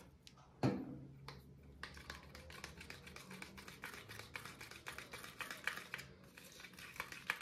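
Small metal palette knife stirring paint in a plastic cup: quick, faint, repeated scraping and tapping against the cup. A single knock about half a second in, as the colorant bottle is set down on the table.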